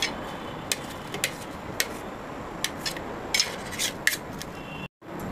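Knife blade tapping and scraping on a stainless-steel plate while boiled eggs are chopped: a string of light, irregular clicks.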